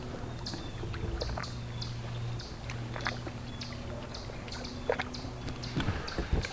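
Steady low hum of a boat motor, with scattered light clicks and taps over it and a few dull knocks near the end.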